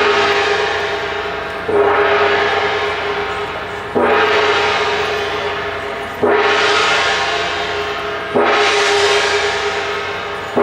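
A large gong struck slowly and evenly, about once every two seconds, each stroke ringing out with a long shimmering tone that fades before the next. There are four strokes, plus a fifth right at the end.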